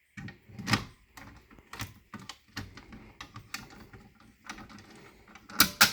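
Irregular clicks and knocks from a Notifier NBG-12 fire alarm pull station being reset with an Allen key, with the loudest cluster of clicks near the end.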